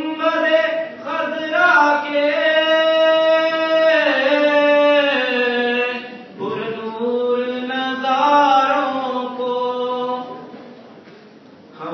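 A man's solo voice reciting a naat, Urdu devotional poetry in praise of the Prophet, chanted in long held phrases with no instruments. A phrase breaks off about six seconds in, and the next one fades out about ten seconds in.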